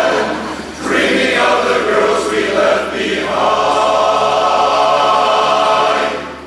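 Barbershop chorus singing a cappella in close harmony, ending on a long held chord that is cut off just before the end.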